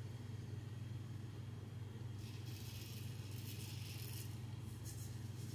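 Mühle R89 safety razor scraping through lathered stubble on the neck: a faint rasping stroke lasting about a second and a half, starting about two seconds in, over a steady low hum.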